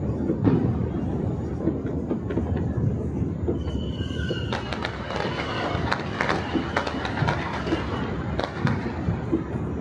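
Distant firecrackers and fireworks popping and crackling across a city, many small bangs that thicken in the second half, over a steady low rumble. A couple of short whistles sound a little before the middle.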